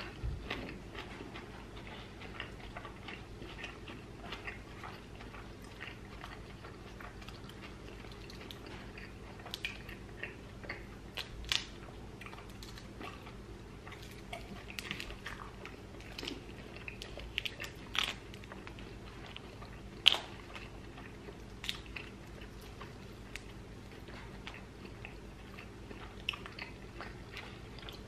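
A person chewing and biting into food, with a short crisp crunch or click every few seconds, over a faint steady hum.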